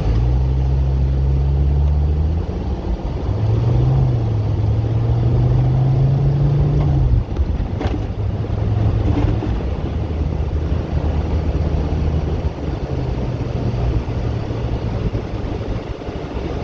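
Mercedes-Benz W123 300D's five-cylinder turbo diesel engine running under way, heard from inside the cabin over steady road noise. The engine note rises and shifts in pitch, drops abruptly about seven seconds in, then holds lower and steadier.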